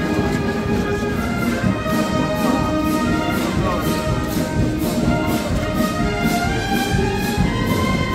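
Brass band playing, with held horn notes over a regular percussive beat.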